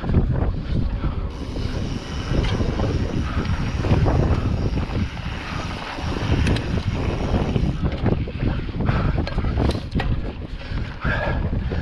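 Wind buffeting the microphone of a mountain bike's on-board camera while riding a dirt trail, with frequent small knocks and rattles from the bike over rough ground.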